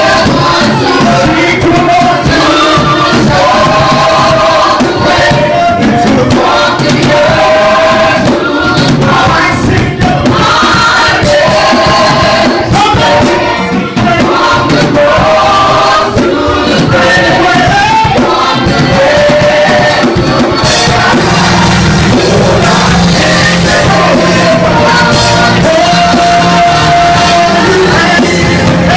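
Loud live music with group singing, the sung melody lines running throughout. About two-thirds of the way in, a steady low sustained bass tone comes in under a long held sung note.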